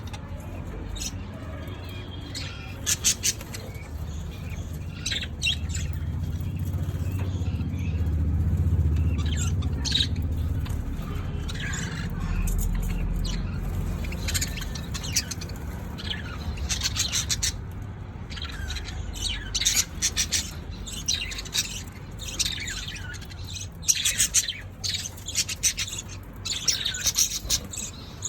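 Budgerigars chirping and squawking in quick clusters of short, high, scratchy calls, sparse at first and much busier in the second half. A low rumble sits under the calls through the first half.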